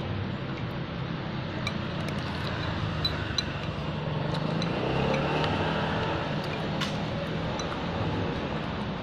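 Metal spoon and fork clinking lightly against a ceramic bowl of noodle soup, a few scattered ticks, over a steady low background hum that gets a little louder for a couple of seconds around the middle.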